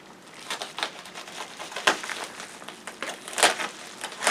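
Plastic poly mailer bag crinkling and crackling as hands work at it with a small knife, in irregular rustles with a few sharper crackles, the loudest about two seconds in and about three and a half seconds in.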